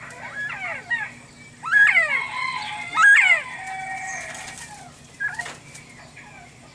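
Bobwhite quail calling: a busy run of short whistled chirps, with two loud calls about two and three seconds in, each rising sharply and then holding a level whistle.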